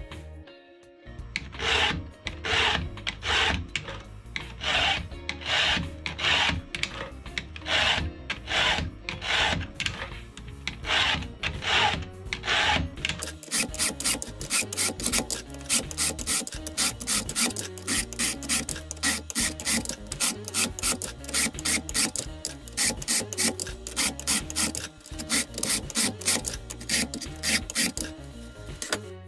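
Stihl 2-in-1 chainsaw sharpener filing a saw chain's cutters and depth gauges, with repeated push strokes of the files rasping on the chain's steel teeth. The strokes come much faster from about halfway through.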